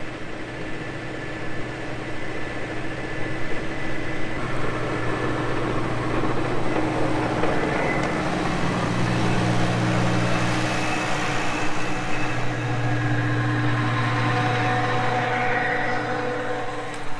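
Tractor engine running steadily under load as the tractor drives up and passes right alongside, getting louder from about four seconds in and staying loud until it cuts off suddenly at the end.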